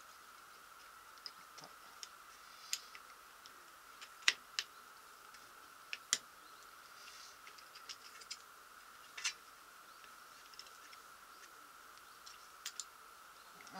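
Scattered small clicks and taps of a Robin engine's recoil starter being put back together by hand, its pulley, pawls and housing knocking against each other. The sharpest clicks come about four and six seconds in.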